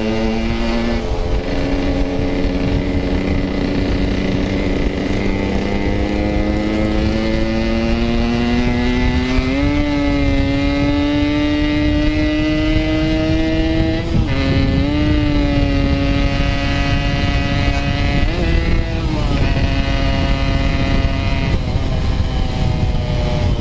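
Yamaha RX-King's two-stroke single-cylinder engine running under way, with wind rushing past. The pitch creeps slowly upward and dips sharply three times at gear shifts; the rider suspects the clutch is slipping badly.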